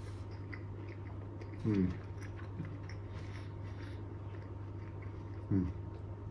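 Mouth sounds of a man chewing a bite of fried prawn and onion, faint wet clicks, with two short hummed "mm" sounds, one about two seconds in and one near the end.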